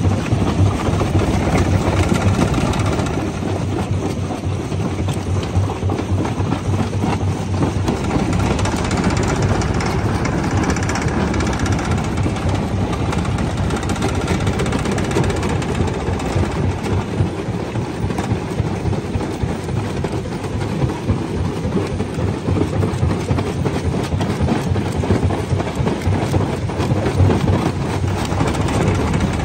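Jaw crusher running and crushing stone: a steady rumble with constant cracking and grinding of rock.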